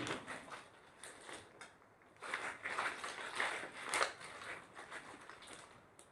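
Slime being mixed and squeezed by hand, with sticky squelching and crackling pops. There is a short spell at the start and a longer, louder one from about two seconds in.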